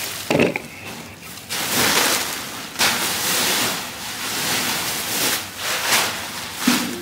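Bags of shipping packages being emptied out: a few long bursts of rustling and sliding as the parcels tumble out.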